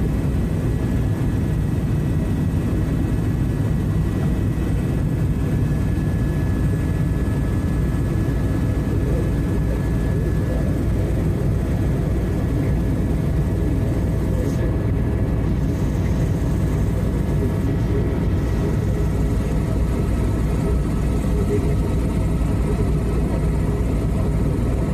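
Tour helicopter in steady cruise, heard from inside the cabin: a constant low rumble of engine and rotor, unchanging throughout.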